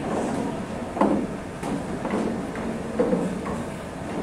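Pool balls knocking together on the table in short sharp clacks, one about a second in and another about three seconds in, over a low murmur of room chatter.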